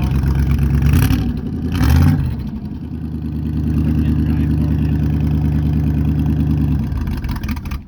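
1971 Chevrolet C10 pickup's engine running on a cold start without the choke. It rises briefly about two seconds in, then idles steadily before fading out near the end as the engine dies.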